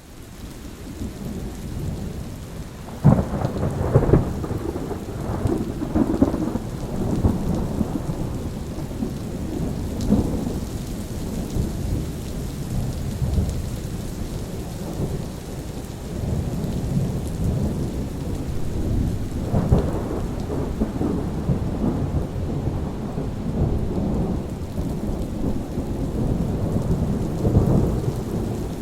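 Steady rain with rolling thunder. It swells up at the start, a sharp thunderclap about three seconds in rumbles on for several seconds, and another peal comes a little past two-thirds through.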